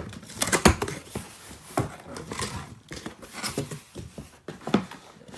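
A cardboard shipping box being opened and handled by hand: a string of scrapes, knocks and rustles, the sharpest knock about two-thirds of a second in.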